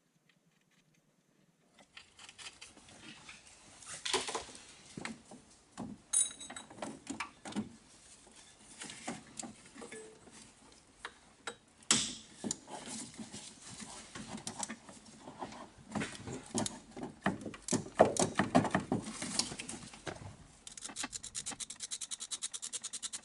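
Hand tools clinking and knocking against metal parts, starting about two seconds in, with a rapid, even run of ratchet spanner clicks near the end.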